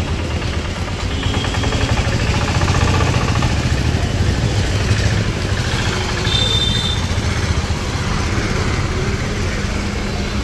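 Motor vehicle engines, motorcycles among them, running close by in busy street traffic, with a short high tone about six seconds in.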